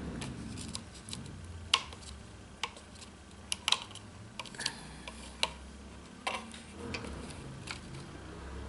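Sharp, irregular metallic clicks from a Cold Steel Recon 1 folding knife, its handle scales still off, as the newly refitted blade and back lock are worked by hand. There are about a dozen clicks, the loudest about two and four seconds in.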